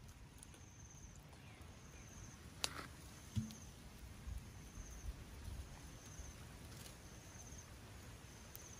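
An insect chirping in short, high, buzzing pulses about once a second, over quiet outdoor background. Two light knocks come about three seconds in.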